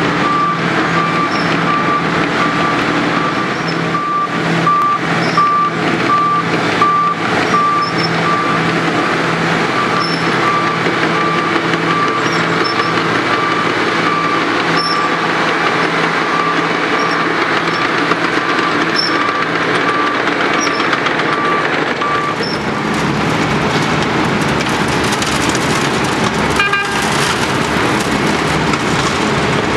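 Wirtgen W2200 cold milling machine working: its diesel engine runs under steady load while a warning beeper sounds about once a second. Near the end the beeping stops and a rushing hiss of milled asphalt pouring off the conveyor into the dump truck's bed joins the engine.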